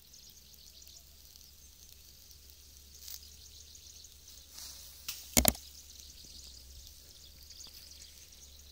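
Chicken kebabs on skewers sizzling faintly over hot charcoal, a steady high hiss. A sharp knock about three seconds in and two loud knocks close together about five seconds in.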